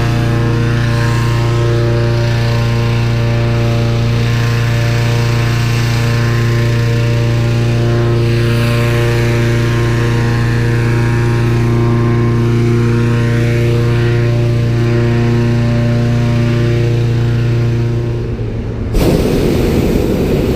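Engine of a balloon inflator fan running at a steady high speed during cold inflation of the envelope, a constant hum that holds one pitch. About nineteen seconds in it cuts off suddenly to a rushing noise.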